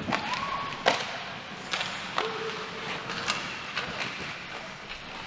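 Ice hockey play: sharp clacks and knocks of sticks, puck and boards, about five over a few seconds, the loudest about a second in, over the steady echoing noise of the rink.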